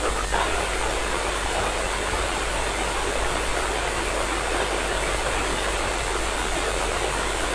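Steady radio hiss from a software-defined radio receiver tuned to the International Space Station's 2-metre downlink near 145.80 MHz, with no voice coming through between the astronaut's answers.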